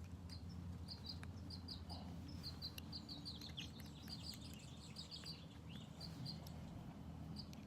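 A small bird chirping repeatedly in short high notes, often in pairs, over a steady low hum.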